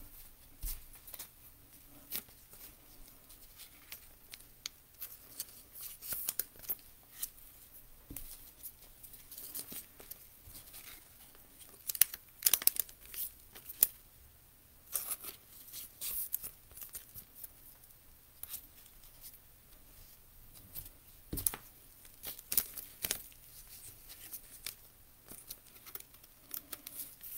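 Trading cards and rigid plastic top loaders being handled: scattered light clicks and rustling of plastic, in a few busier clusters.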